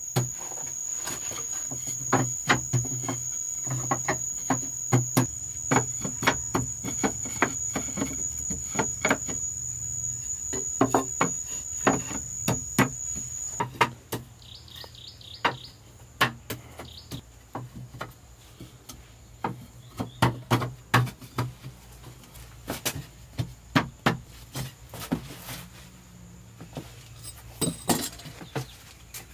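A steady high-pitched insect drone, like a cricket, that cuts off abruptly about halfway through, over many irregular knocks and taps.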